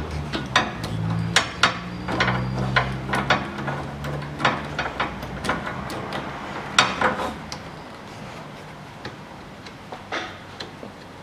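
Irregular metallic clicks and clinks of hand tools on the rear hub's mounting bolts as they are run in. A low steady hum underneath fades out about five seconds in.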